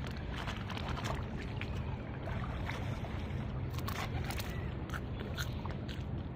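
Ocean waves washing onto the shore: a steady rushing wash with a deep rumble underneath and scattered crackles and fizzes throughout.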